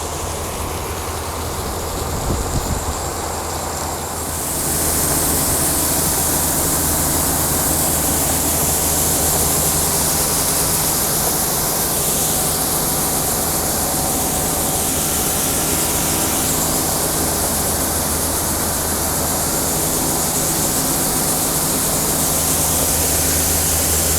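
Farm grain-handling machinery running steadily while shelled corn is unloaded and conveyed toward a silo: a low engine hum, joined about four seconds in by a loud rushing hiss that then holds steady.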